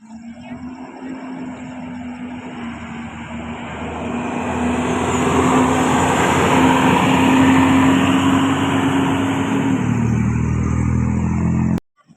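A bus driving past close by, its engine and road noise growing louder toward the middle. Its engine note drops in pitch near the end as it goes by, and the sound then cuts off suddenly.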